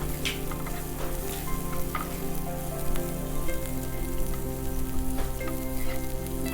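Chopped onion, garlic and green chillies sizzling as they fry in olive oil in a pan, with scattered small crackles.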